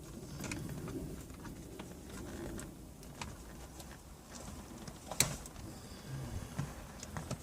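Electrical tape being pulled off the roll and wrapped around a soldered wire splice: faint rustling and small crackles, with a sharp click about five seconds in.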